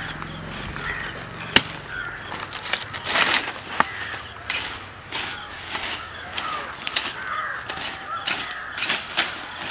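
A billhook hacking at the base of cassava stems and the soil: a run of short chopping strikes, a few of them sharp knocks, from about three seconds in. Crows caw at the same time.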